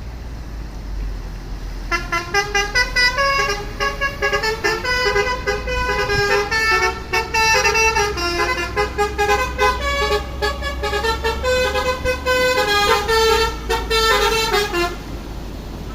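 Bus telolet horn, a multi-tone musical air horn, playing a quick tune of short notes from about two seconds in until near the end, over a steady low rumble.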